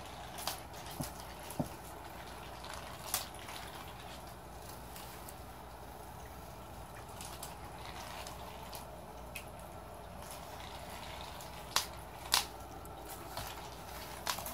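Small electric motor of a battery-powered spinning cat toy running steadily, with a handful of sharp taps and ticks, the loudest ones near the end.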